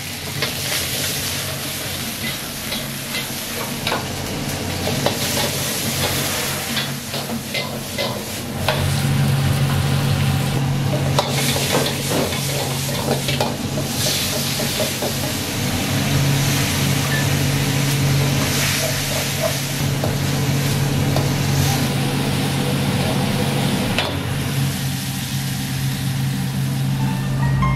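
Tomato and green pepper stir-frying in an iron wok over a gas burner: steady sizzling, with a metal ladle scraping and clacking against the wok. A steady low hum joins underneath about a third of the way in.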